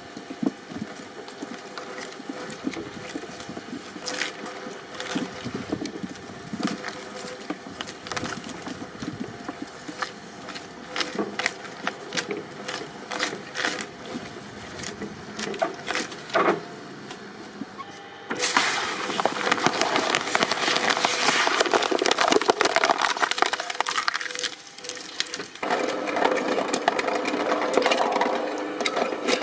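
Shredding machine breaking up material: scattered sharp cracks and snaps over the running machine, then about two-thirds of the way in a sudden, much louder dense crackling as it tears into a heavier load.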